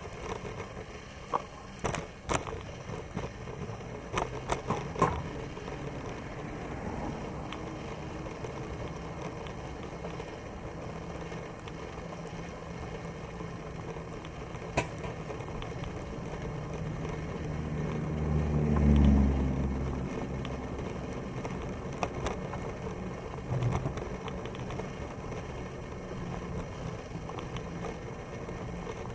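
Riding noise from a Moulton bicycle on a paved path: a steady hiss of tyres and moving air with scattered clicks and rattles. About two-thirds of the way through, a passing road vehicle swells to a low rumble and fades.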